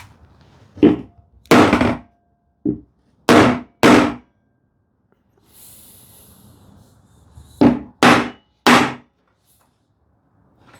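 Hammer blows on an ash panel in glue-up, knocking the edge joint down level. There are five strikes in the first four seconds, then a pause, then three quick strikes near the end.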